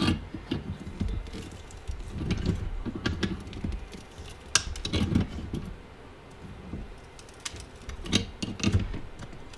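Three-jaw gear puller's forcing screw being turned in short strokes with pliers, drawing the motor bearing off a hot tub pump motor shaft: scattered metal clicks and clunks.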